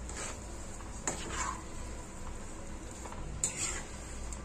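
Steel spatula stirring and scraping mashed potato filling around a nonstick kadhai, over a low sizzle from the pan on the heat. The spatula knocks sharply against the pan about a second in and again near the end.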